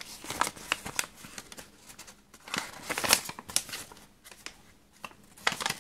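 A folded paper instruction leaflet being unfolded and handled: irregular rustling and crinkling of paper, with a quieter spell a little past four seconds in.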